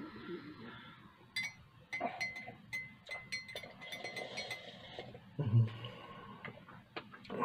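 Slurping sips of lemon tea from a glass cup: a run of wet mouth clicks and squeaky sucking noises, then a brief louder low sound about five and a half seconds in.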